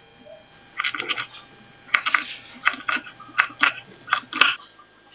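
Kitchen knife chopping carrots on a wooden cutting board: about a dozen sharp, uneven chops, starting about a second in and stopping a little before the end.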